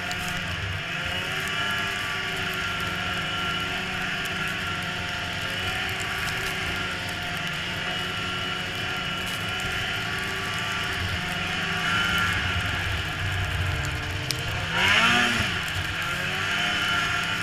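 Snowmobile engine running, its pitch wavering up and down with the throttle. Near the end it rises and falls once in a brief rev, the loudest moment.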